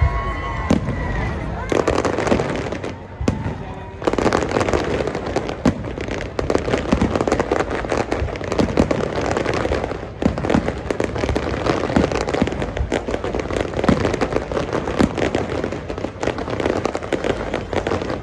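Fireworks display: a rapid run of bangs and crackles. The shots are sparser for the first few seconds, with a short lull, and become a dense, continuous barrage from about four seconds in.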